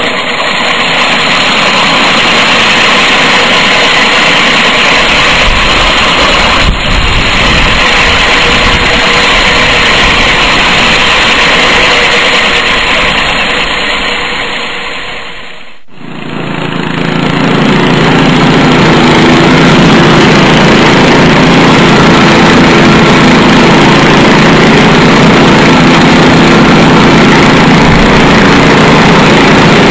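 Edco concrete floor grinders running, their rotating discs grinding a concrete slab. The first machine gives a steady, hissy grinding sound; it fades out about halfway through and gives way to a deeper, steady running machine sound.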